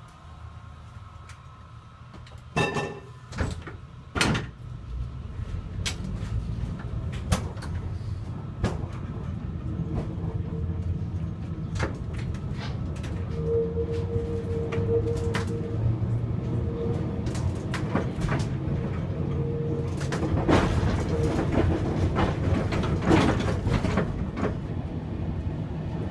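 Two-axle Gotha T57 tram pulling away and running on its rails, heard inside the driver's cab. A few sharp clunks come in the first seconds, then a rising low rumble of wheels and motors with many clacks over rail joints and points. A steady whine comes and goes through the middle, and the clacking is loudest near the end.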